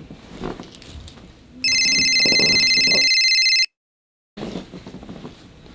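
Loud electronic telephone-style ring with a fast trill, lasting about two seconds from a second and a half in and cutting off abruptly. Quieter rustling and shuffling on a bed comes before and after it.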